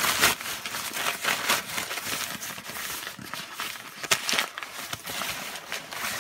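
Crumpled packing paper crinkling and rustling in irregular bursts as hands dig through it.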